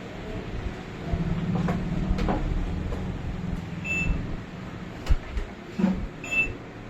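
Banknote counting machine running: its motor whirs for about three seconds as notes feed through, with a few clicks, then two short electronic beeps.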